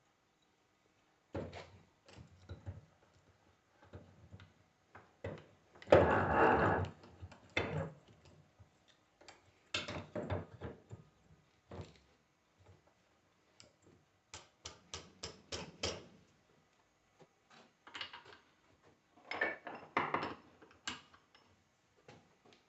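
Bench work on a disassembled Bosch alternator: metal parts and hand tools clinking and knocking, with a longer, louder clatter about six seconds in and a quick run of clicks later on.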